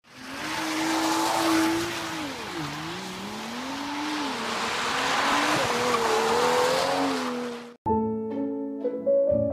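Car engine and exhaust as a car drives along the road, the engine note dipping and rising several times as it accelerates. Near the end it cuts off abruptly and piano music starts.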